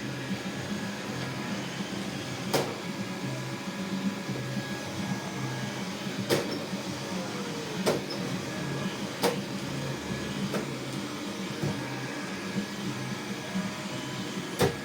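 Xiaomi 3C robot vacuum cleaner running with a steady hum, its low motor tone cutting in and out in short pulses, with six sharp clicks at irregular intervals. The machine is glitching and jerking as it moves.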